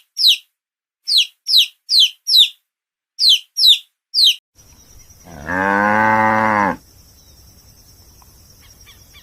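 Eight short, high chirps, each falling in pitch, from a small bird, over the first four seconds or so; then a cow mooing once, a single low call lasting about a second and a half.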